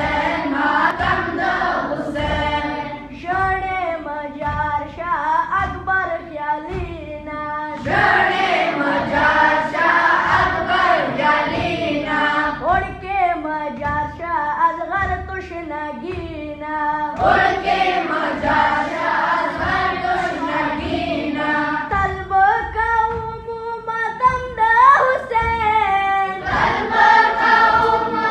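A group of boys singing a Pashto noha, a mourning chant for Imam Hussain, in unison, over a steady beat of low thumps from hands striking their chests (matam), about one and a half to two a second.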